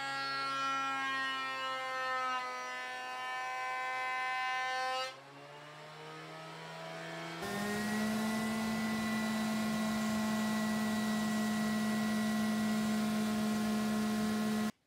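Delta benchtop thickness planer whining, its pitch sagging a little as the board feeds through, then dropping in level about five seconds in. About halfway through, a Ridgid random orbit sander starts abruptly and runs with a steady hum while sanding the face of a hardwood cutting board, then cuts off suddenly near the end.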